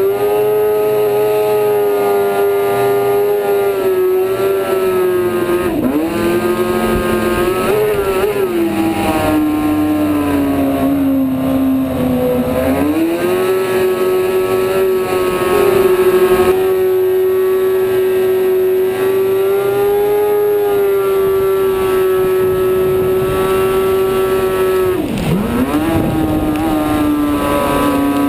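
Kawasaki ZX-10 inline-four motorcycle engine driving a jet boat pump, running hard at high revs. The pitch holds mostly steady, with brief dips and recoveries as the throttle is eased and reopened, a slow sag and climb back around the middle, and a sharp dip and rise near the end.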